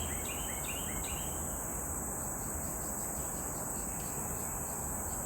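A steady, high-pitched insect chorus drones on without a break. A bird gives a quick run of about five short notes in the first second and a half.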